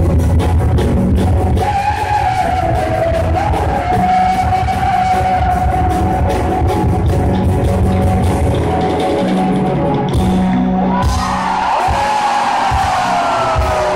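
Live band with acoustic guitar and vocals playing a song, heard from the audience: drums in the first couple of seconds, then a long held note for several seconds, and a slow falling note near the end.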